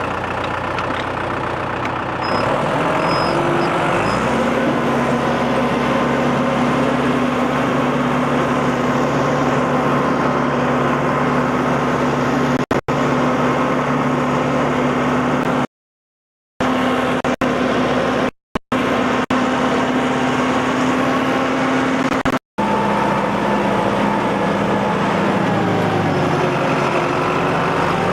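John Deere 5520 tractor's diesel engine revving up about two to four seconds in, then running steadily at high throttle while dragging a log, and easing back down in pitch near the end.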